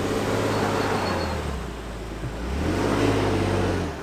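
Toyota Tundra's 3.5-litre twin-turbo V6 working the truck over a small off-road obstacle at low speed. The engine note rises twice under throttle, eases in between, and settles again near the end.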